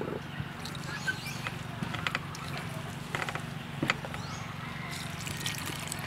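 A wooden spatula stirring flour and egg in a stainless steel bowl, with scattered clicks and scrapes against the metal. Water starts trickling into the bowl near the end.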